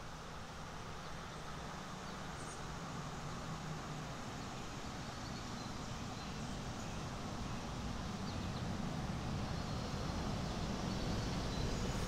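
Mountain stream running: a steady rush of water that grows gradually louder, with more low rumble toward the end.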